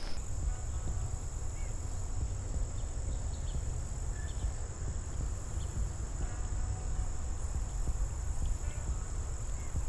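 Insects trilling steadily in a continuous high-pitched drone, with faster pulsing chirps above it, over a steady low rumble.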